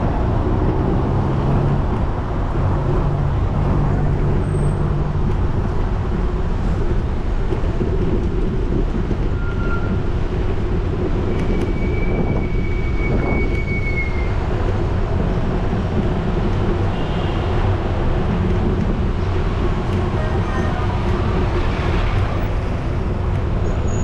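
City street traffic heard from a bicycle: cars running past close by over a steady low rumble, with a brief high-pitched squeal a little before the middle.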